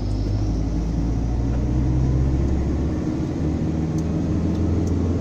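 Passenger van driving, heard from inside the cabin: a steady low engine and road rumble that swells slightly, with a few faint clicks near the end. These are the rattles the owner puts down to the van's suspension.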